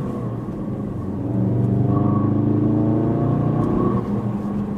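Ford Focus RS Mk3's turbocharged 2.3-litre four-cylinder, heard through its custom-modified exhaust, accelerating hard. The revs climb steadily and get louder about a second in, then drop briefly at a gear change about four seconds in and start climbing again.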